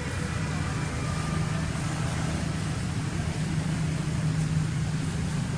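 A steady low mechanical drone, like a motor or engine running, holding even throughout.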